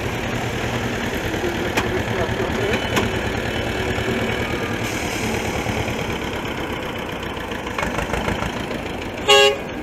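Farm tractor engines running at low speed as tractors pulling trailers roll slowly past. Near the end a vehicle horn toots once, briefly; this is the loudest sound.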